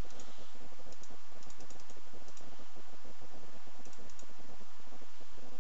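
Irregular runs of quick clicks from a computer keyboard and mouse as software settings are adjusted, over a steady hiss.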